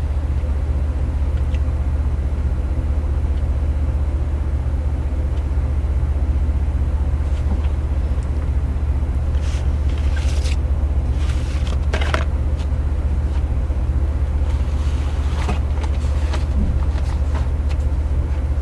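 A steady low hum that never changes, with a few faint short clicks about halfway through and again near the end.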